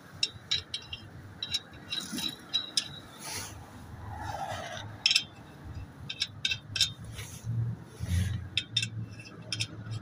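Metal lug nuts clinking and scraping as they are spun by hand onto the wheel studs of a steel spare wheel, in quick irregular clicks. A steady low hum comes in about a third of the way through.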